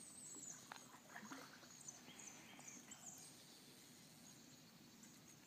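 Near silence: faint high chirps and a few soft knocks.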